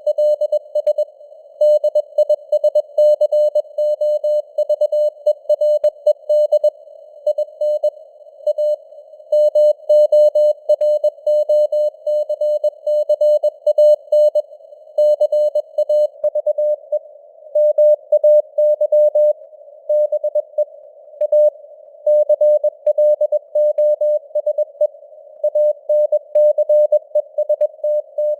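Morse code sent as a tone of about 600 Hz keyed on and off at 21 words per minute, over a band of simulated radio hiss, with the signal strength fading up and down (QSB).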